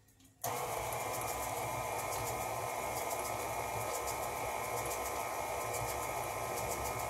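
KitchenAid tilt-head stand mixer switched on about half a second in and running at a steady speed, beating a freshly added egg into the cookie dough in its stainless steel bowl.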